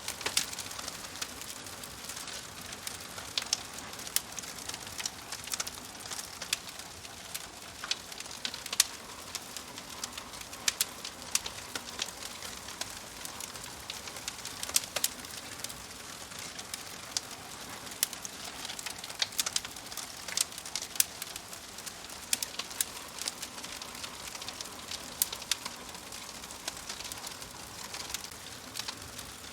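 Wood fire crackling: many irregular sharp pops and snaps over a steady soft hiss.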